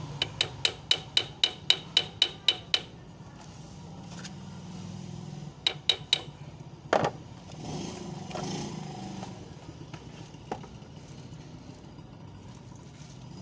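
Small steel hammer tapping lightly and quickly on the kingpin of a forklift steering knuckle, driving the pin home: a run of about a dozen ringing metal taps, some five a second, then three more taps and a single heavier knock a few seconds later.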